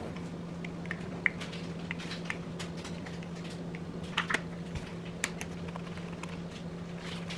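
Light, irregular clicks and taps of chopsticks and then a spoon against a rice bowl and a plastic rice-ball mould as salmon-flaked rice is mixed and scooped, with a sharper pair of taps about four seconds in. A steady low hum runs underneath.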